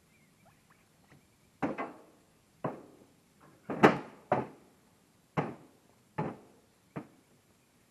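Chunks of hardwood firewood knocking against wood, about seven separate sharp hits roughly a second apart, the loudest about four seconds in.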